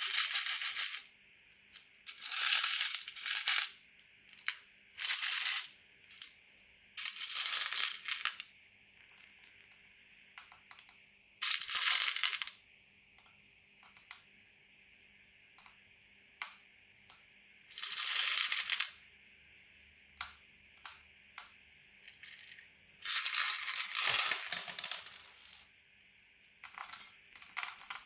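Glitter slime being squished and stretched by hand, crackling and popping as air bubbles in it burst. The crackles come in bursts of one to two seconds every few seconds, with single sharp pops in between.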